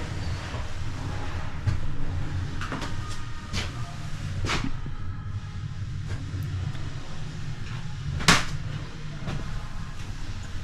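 A few sharp knocks and clicks over a steady low hum inside a narrowboat cabin under construction. The loudest knock comes about eight seconds in.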